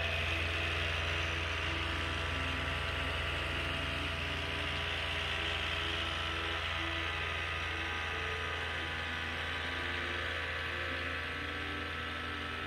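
Steady mechanical running sound, like an engine or generator idling: a constant low drone with a higher hiss over it, unchanging throughout.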